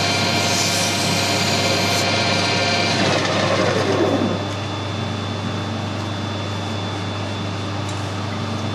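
Metal lathe running with emery tape being held against a small handle spinning in its collet chuck. About three seconds in the lathe is switched off and its whine falls in pitch as the spindle runs down, stopping about a second and a half later. A steady low hum remains.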